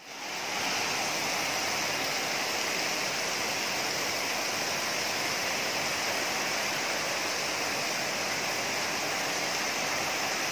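Heavy rain pouring down: a steady, even hiss that comes up within the first half second.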